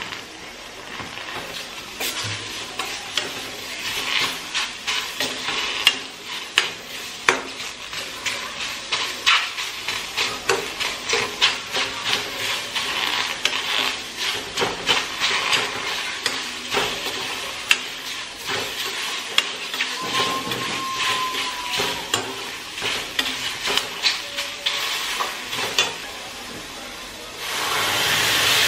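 Tomatoes and greens sizzling in a hot steel kadai, stirred with a steel spoon that clicks and scrapes against the pan many times. Near the end water is poured into the hot pan and a louder, steady steam hiss takes over.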